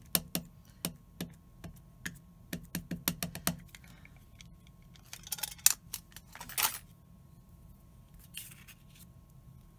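A quick series of light plastic taps and clicks for the first three and a half seconds or so, then brief rubbing sounds around the middle and once near the end. This is a VersaFine ink pad being tapped onto a clear rubber stamp on an acrylic block to ink it, and the pad and block being handled.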